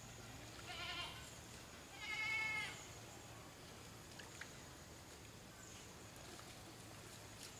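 A farm animal bleating twice: a short bleat, then a longer, louder one about a second later, over a faint steady hum.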